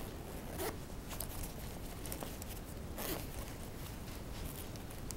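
Faint rustling, scraping and small clicks of a fabric camcorder carrying bag being handled, with a brief louder swish about three seconds in.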